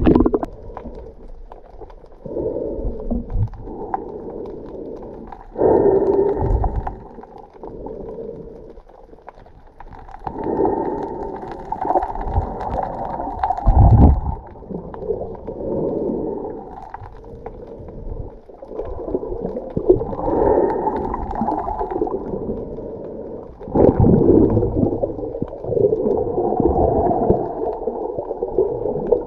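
Muffled sloshing and gurgling of water heard through an action camera's submerged microphone, rising and falling in swells every few seconds, with a sharp low knock about halfway through.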